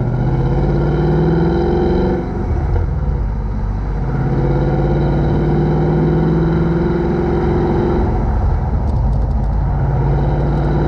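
Ford Mustang GT's V8 running through an H-pipe with the stock back boxes, a steady deep exhaust drone whose note breaks up briefly about two seconds in and again about eight seconds in.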